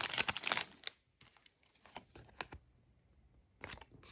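Foil trading-card booster pack wrapper crinkling for under a second, then a few light clicks and taps of cards being handled, with a short quiet gap before one more click near the end.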